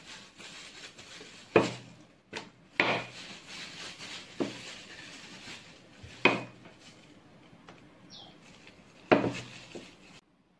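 Wooden rolling pin rolling out soft bun dough on a glass board: a steady rubbing, rolling noise broken by about five sharp knocks of the pin against the board, then it stops near the end.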